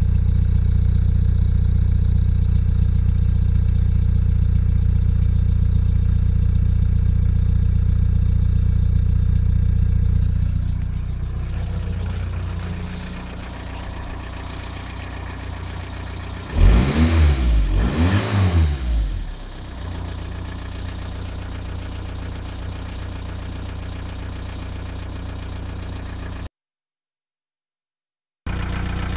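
Volkswagen 1.9 TDI four-cylinder turbodiesel running at idle with the ticking noise that the owner takes for play in a piston (wrist) pin. About halfway through the throttle is blipped twice, the engine revving up and falling back, before settling to idle again.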